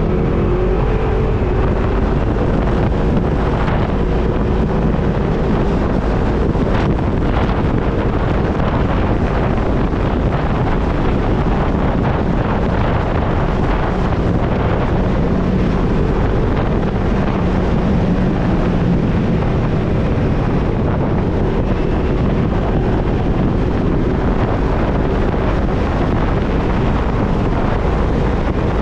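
A motor vehicle's engine running steadily, largely masked by heavy wind buffeting on the microphone.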